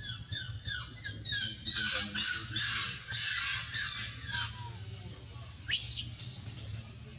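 Baby macaque crying: a quick run of short, high squeals, each falling in pitch, running into longer screams over the first four seconds or so, then one sharp rising squeal near the end.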